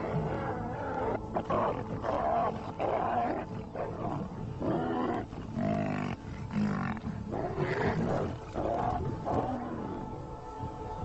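Lions calling during a fight: a run of rough, pitched calls one after another, each rising and falling.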